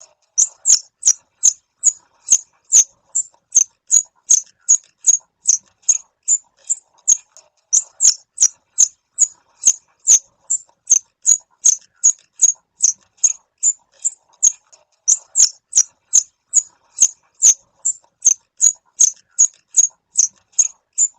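An animal's short, high-pitched chirps repeated steadily at about two a second, with two brief pauses.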